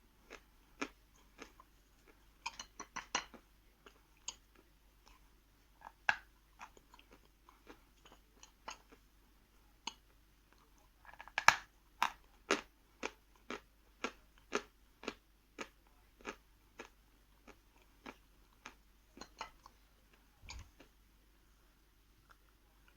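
Biting and chewing a hard piece of Khrustal eating chalk, crunching close to the microphone. The crunches are sparse at first, then come as a loud bite about halfway through, followed by steady crunching about twice a second.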